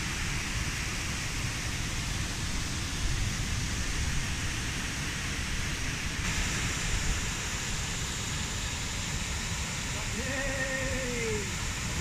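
Waterfall rushing steadily as water pours over a broad cascade into a pool. A man's voice is heard briefly near the end.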